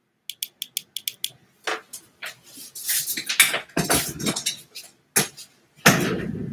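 A quick run of small sharp clicks and rattles, then knocks, rustling and bumps as a wheeled office chair is handled and moved, with louder, deeper thumps near the end as the chair is sat in.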